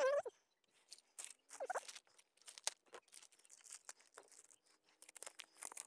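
Sped-up handling of small mount hardware and its packaging: quick clicks and plastic and paper crinkling. Brief squeaky, chipmunk-like snippets of sped-up voice come in near the start and about a second and a half in.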